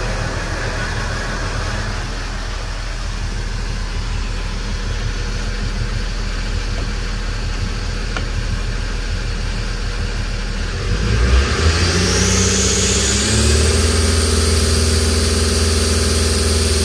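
Hyundai SeasAll S270 marine diesel engine idling at about 800 rpm, then revved about two-thirds of the way in to roughly 2,400 rpm and held there steadily.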